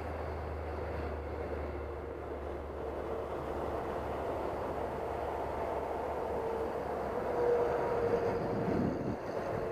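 Electric RC model of a T-28 Trojan warbird in flight, its motor and propeller giving a steady droning whine that wavers slightly in pitch. It grows loudest and dips in pitch as it passes about three-quarters of the way through.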